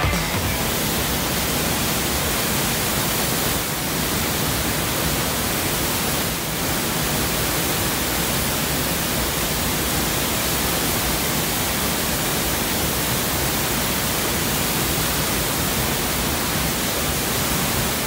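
Waterfall: a large torrent of water falling onto rocks, a steady, even rush.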